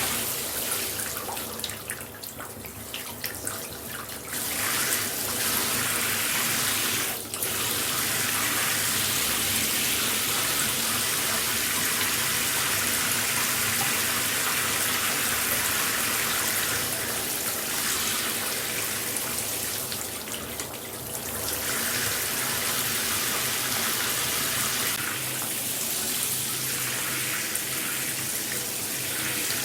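Shower running: a steady hiss of spraying water, dipping briefly a few times.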